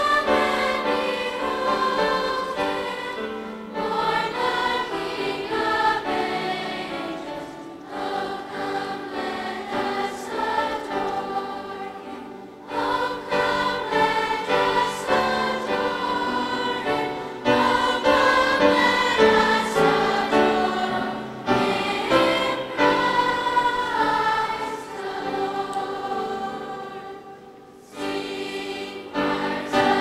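Children's choir singing, with short breaks between phrases about a third of the way in and again near the end.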